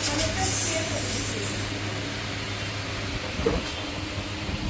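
A steady low hum, with a high hiss in the first second and a half or so.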